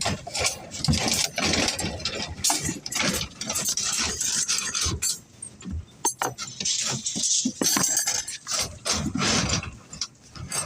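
Irregular knocks, clanks and rattling from work on a building site, with many short sharp strikes coming at uneven intervals.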